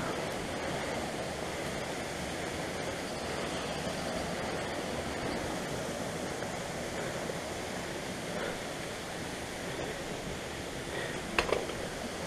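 Steady rushing of running water, with one brief sharp knock near the end.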